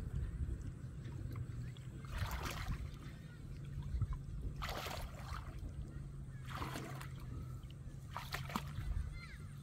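Hands splashing and sloshing in shallow muddy paddy water while groping for fish, in four separate splashes about two seconds apart.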